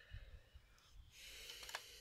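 Faint handling sounds: a soft rustling hiss starts about halfway, then a few light clicks near the end as a pliers wrench is brought onto the valve's pipe fitting.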